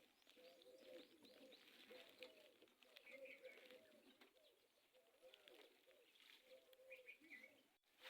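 Domestic hen's soft, faint low calls repeated again and again, with a few brief higher chirps in between.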